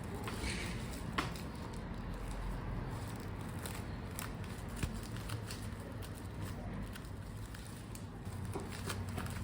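Soft handling sounds of a sushi roll being rolled up in a bamboo sushi mat, with scattered light clicks and taps from the mat and hands, over a low steady hum.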